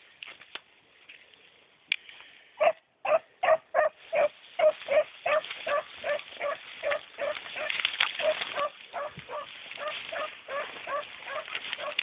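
Beagle barking in a steady run of short, pitched barks, about two to three a second, starting a few seconds in. It is the bark of a hound running a rabbit's scent trail.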